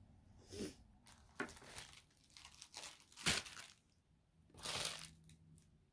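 Plastic packaging crinkling and tearing as a wrapped crystal is pulled open by hand, in several short rustles, the loudest a little past three seconds in.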